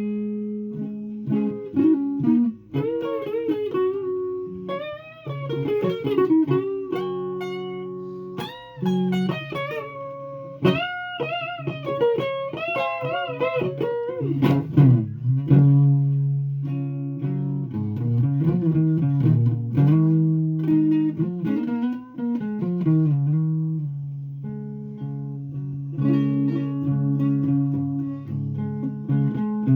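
Guitar played solo in a loose jam, picked melody lines with bent and wavering notes over lower ringing notes.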